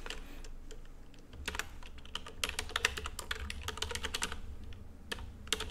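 Typing on a computer keyboard: a quick run of keystrokes, densest from about one and a half to four and a half seconds in, with a few more keys near the end, over a faint low hum.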